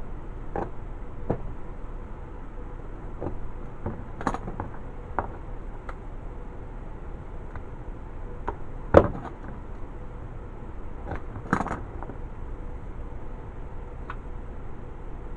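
Scattered light clicks and knocks from a slingshot and its rubber bands being handled during a band change, over a steady hiss. One sharper knock comes about two-thirds of the way through.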